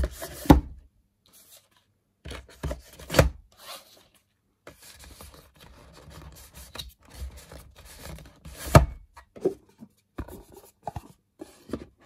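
Cardboard packaging, books and disc cases being slid and pushed back into a cardboard box set and its outer sleeve, with rubbing and scraping throughout. A few sharp knocks break through, the loudest about nine seconds in.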